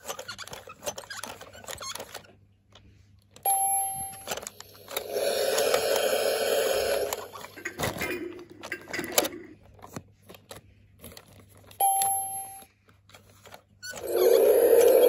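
Electronic sound unit in a plastic Chuggington Interactive Railway playset, triggered by its hand-turned crank wheel: a short beep followed by a played sound effect of about two seconds, twice. Light plastic clicking of the crank comes in the first few seconds.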